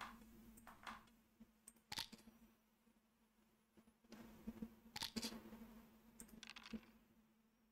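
Near silence: a faint steady hum of room tone with a few soft clicks, one about two seconds in and a small cluster around five seconds in.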